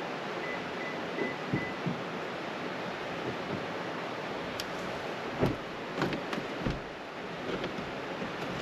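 River water rushing steadily, with a few soft, irregular knocks and clicks over it.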